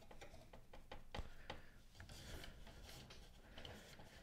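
Faint rubbing and a few light clicks from hands working a damp paper towel and the plastic print-head carriage of an Epson WorkForce inkjet printer.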